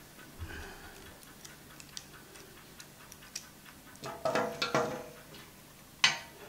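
Faint steady ticking from the clockwork, egg-timer-like mechanism of a wound-up Vktech rotating time-lapse head. About four seconds in there is clatter with ringing clinks as a bendy-leg mini tripod is handled on a glass tabletop, and a single sharp click near the end.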